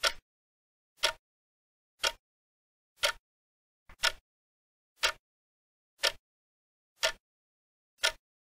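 Countdown timer ticking: one short, sharp tick every second, evenly spaced, nine in all, counting down the time allowed to answer a question.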